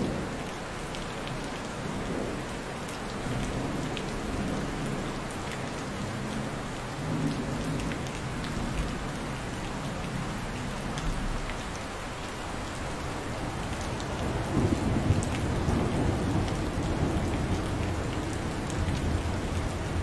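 Steady rain falling, with a low rumble of thunder swelling in the background during the last third.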